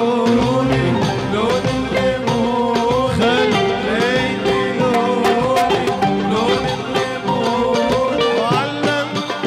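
Arabic wedding band music: an instrumental melody with sliding, ornamented notes over a steady rhythmic accompaniment.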